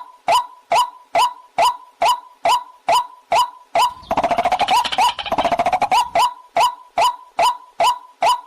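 Recorded waterhen call played as a lure for catching the bird. A sharp, clipped note repeats about twice a second, and around the middle it is broken by about two seconds of a faster, lower chattering run before the steady notes resume.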